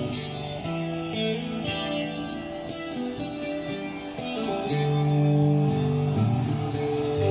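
Acoustic guitars playing a strummed and picked rock intro, played back from a vinyl record on an AR turntable.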